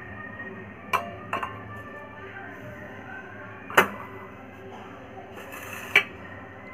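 Kitchen utensils knocking and clinking: a silicone spatula tapping and scraping a glass mixing bowl and a steel bowl set down on a stone counter, four sharp knocks in all, the loudest about four seconds in.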